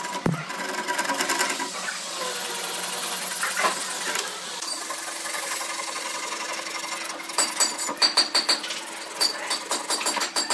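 Handsaw cutting through the ends of thin pine slats, rasping back-and-forth strokes that settle into a fast rhythm of about four strokes a second in the second half. A sharp knock right at the start.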